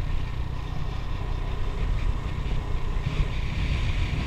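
Wind buffeting the microphone of a moving action camera: a steady, fluctuating low rumble with road and vehicle noise beneath it.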